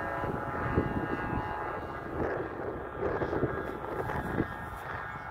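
Strong wind gusting and buffeting the microphone. At the start a steady hum of several even tones fades out within the first half-second.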